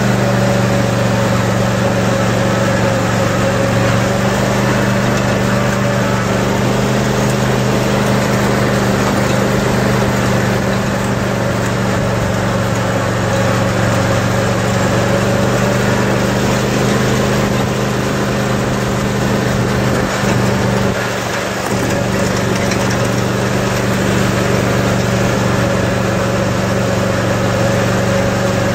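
Cub Cadet RZT zero-turn riding mower's engine running steadily as it drives across the lawn towing a sprayer cart, briefly dipping about 21 seconds in.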